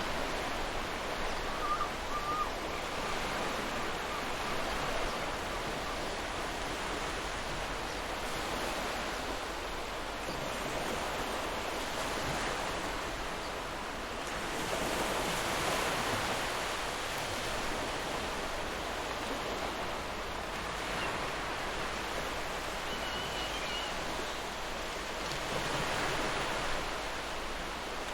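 Ocean surf: waves washing in with a steady hiss that swells and eases as each wave breaks, loudest about halfway through and again near the end.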